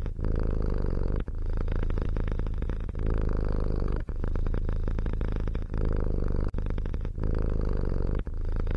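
Domestic cat purring steadily, with a brief break every second or two.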